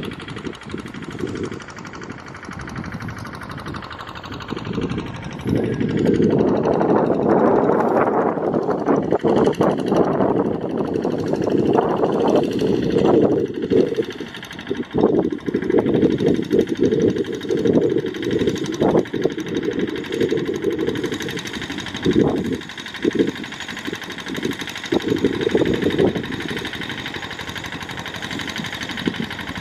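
Kubota RD85 single-cylinder diesel engine of a Quick G1000 Boxer hand tractor running under load while ploughing a paddy. It gets louder about six seconds in, rises and falls as it works, and eases off near the end.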